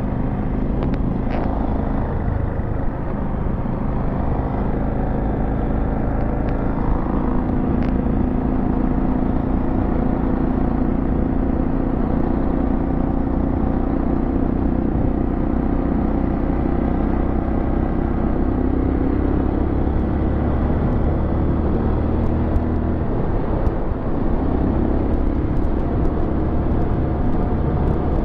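Dual-sport motorcycle engine running steadily while riding at a cruising speed, heard from the rider's position, with a steady low rumble under the engine note.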